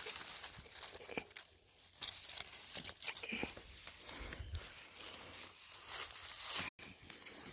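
Rustling and crunching of dry leaf litter and brush underfoot, with scattered small cracks and crackles. It breaks off for an instant near the end.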